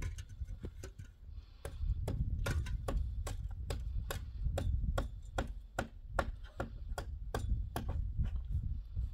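A steady series of sharp, irregular knocks, about two to three a second, over a low rumble.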